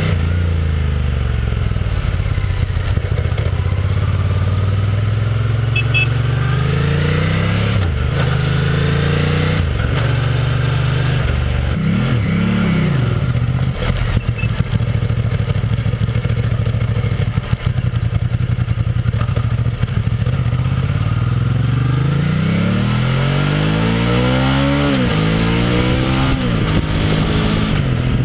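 Ducati ST4's 916 cc L-twin engine on the move. Its note climbs and drops several times as the bike accelerates and changes gear, with a run of quick rev swings near the end.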